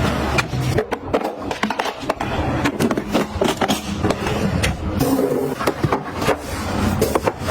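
Repeated clicks, knocks and scrapes of hard objects being handled and set down, with a brief rush of noise about five seconds in.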